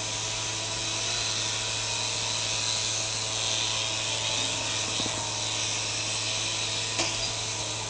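Small electric RC helicopter whirring steadily in flight, its motor and rotors giving a high, even whine. A light tick sounds about seven seconds in.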